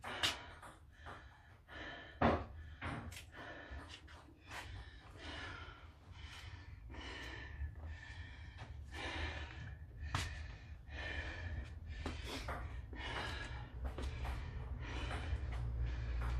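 A woman breathing hard and fast, panting from the exertion of burpees. There is a single sharp knock about two seconds in.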